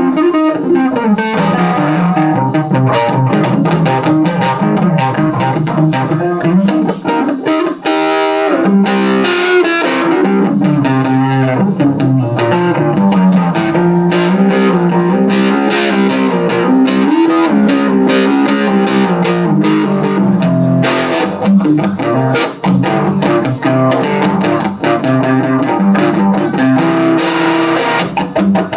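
Van Zandt Telecaster electric guitar played through a Roland JC-120 amp, running through a continuous instrumental passage of quick picked notes and chords.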